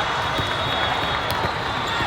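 Spectators' steady crowd din in a large convention hall: clapping mixed with voices.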